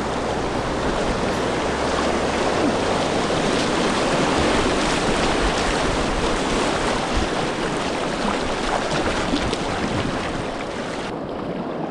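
Rushing whitewater of a river rapid: a steady, loud churning wash of water, turning slightly duller near the end.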